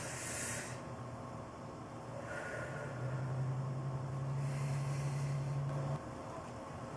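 A person breathing out hard through the nose, three snort-like breaths about two seconds apart, over a steady low hum that stops abruptly about six seconds in.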